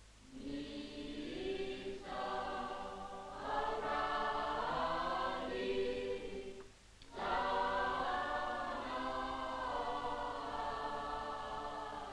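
A choir singing held notes, breaking off briefly about seven seconds in before singing on.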